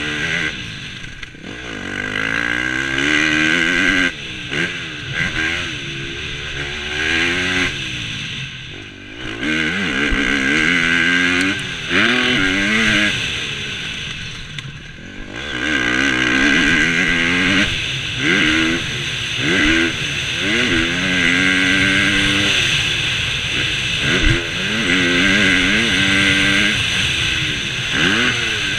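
KTM 250 SX-F four-stroke single-cylinder motocross engine at full riding pace, its pitch climbing and dropping over and over as the throttle is opened, gears are changed and the throttle is closed for corners, with a few short lulls where it backs off.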